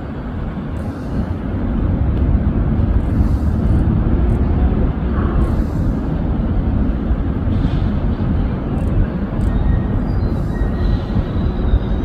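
Steady low rumble of city traffic mixed with wind buffeting the phone's microphone. A faint thin high whistle comes in near the end.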